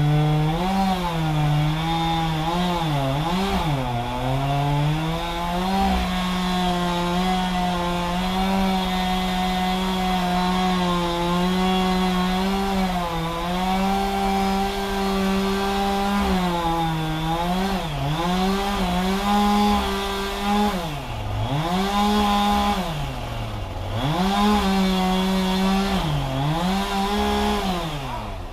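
Two-stroke chainsaw running at high revs while cutting wood, its pitch holding steady for long stretches, then dropping and recovering several times as the chain bogs in the cut or the throttle is eased. It falls off near the end.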